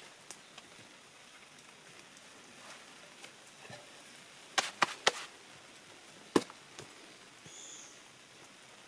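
Sharp knocks of wood: three quick ones about four and a half seconds in, then a single louder one about a second later, with a few lighter clicks around them.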